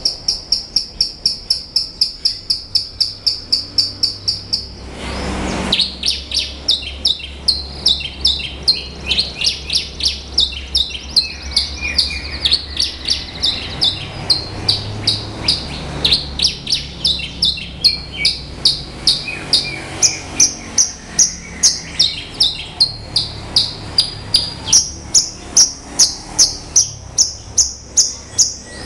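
Horsfield's bush lark (Mirafra javanica) singing: a long unbroken string of quick, high chirping notes, about three a second, the phrase pattern shifting as the song goes on. A short burst of noise cuts in about five seconds in.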